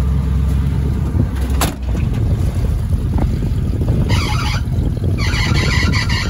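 A vehicle engine running with a low rumble, with a sharp knock about two seconds in. A high, rapidly pulsing chatter comes in about four seconds in and again near the end.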